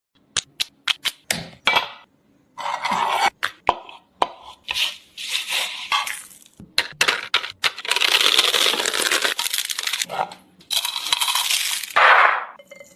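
Kitchen food-preparation sounds: a quick run of sharp clinks and taps of utensils on dishes, then several longer stretches of noise with more clinks between them, the longest lasting about two seconds.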